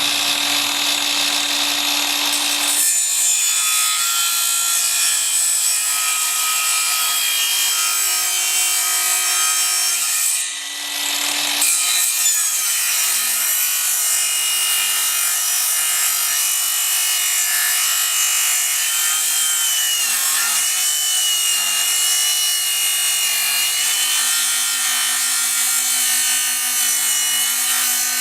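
Craftsman CMCS714M1 20-volt cordless miter saw with a Diablo 62-tooth blade running and cutting slowly through a clamped board in the vertical direction; the motor's pitch wavers under load and the sound dips briefly about ten seconds in.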